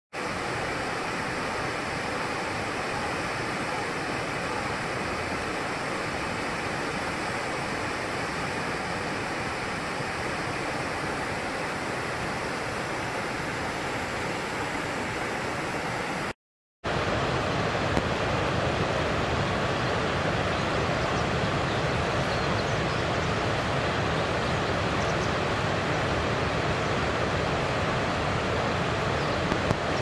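A wide waterfall pouring over broad rock ledges: a steady, even rush of water. There is a brief break of silence a little past halfway, after which the rush comes back slightly louder and deeper.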